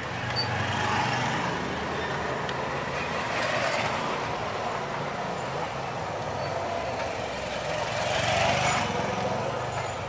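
Road traffic: a steady low engine rumble with vehicles passing, swelling about a second in, around four seconds and again around eight seconds.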